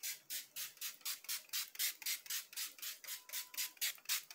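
Makeup setting spray (Ana Paula Marçal fixer) misted onto the face in rapid pumps of the spray bottle: a quick, even run of short hisses, about four a second.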